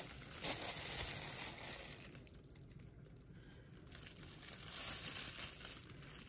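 Plastic crinkling from a disposable plastic glove and the plastic bag lining a kimchi container as a gloved hand handles green onion kimchi. The crinkling is loudest for the first two seconds, drops away, and picks up again around five seconds in.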